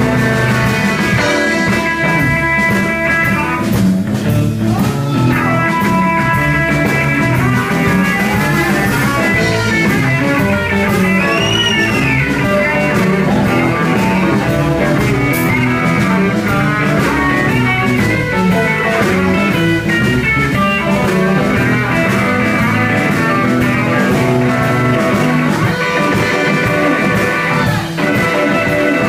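Live blues band playing an instrumental passage: an electric guitar lead with held and bent notes over bass guitar and a drum kit.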